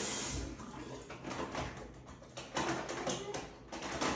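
Tap water splashing unevenly into a bathroom basin as a newborn's bottom is rinsed under the stream, in short irregular bursts.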